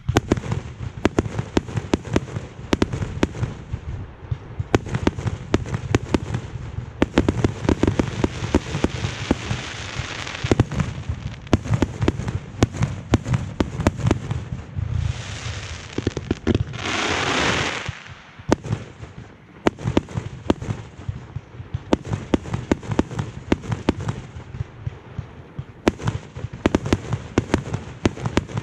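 Consumer fireworks display: a rapid, continuous barrage of aerial shell bursts and sharp reports. About fifteen seconds in comes a hissing, crackling stretch lasting two or three seconds.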